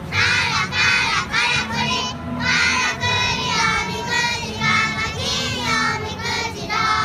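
A group of young children singing a chant together in unison, in short phrases with brief breaks between them.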